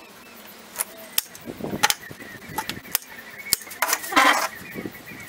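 Irregular sharp clicks and knocks from a pine-slat fly-screen door frame and its mesh being handled on a tile floor, with a longer rasping noise about four seconds in.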